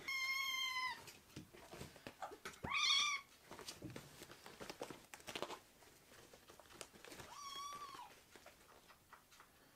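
Tabby kitten mewing three times in high, thin calls, the second the loudest and the third softer, with light scratching and rustling between as its claws catch on cloth trousers.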